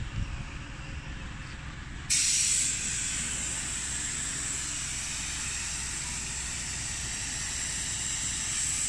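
Compressed-air paint spray gun being triggered: about two seconds in a loud hiss of air starts suddenly, strongest for the first half second, then settles into a steady hiss, over a low rumble.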